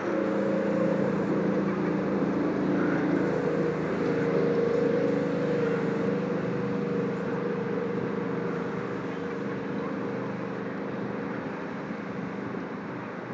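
A steady engine drone with a low hum, loudest about four seconds in and slowly fading after.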